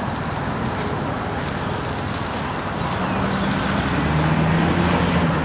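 Car driving at highway speed: a steady rush of road and wind noise with a low engine drone that grows a little louder about three seconds in.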